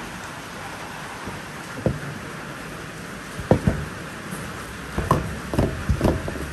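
Several short knocks and clunks over a steady hiss: one about two seconds in, a pair at about three and a half seconds, and a quick run of four from about five seconds.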